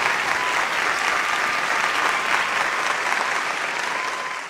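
Audience applauding steadily: farewell applause at the close of a recited poem.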